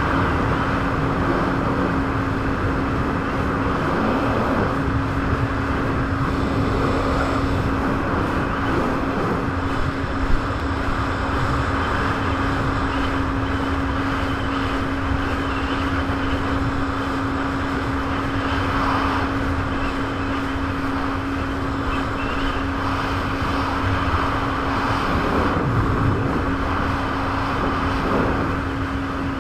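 Jet ski engine running at a steady speed, holding one constant pitch over a broad rush of noise. A single sharp knock comes about ten seconds in.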